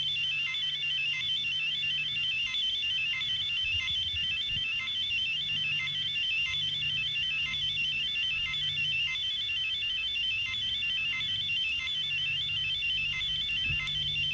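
Instrumental passage of a hip-hop track from a tape transfer: a fast, high, warbling electronic trill like a telephone ringer repeats without a break over a low bass line.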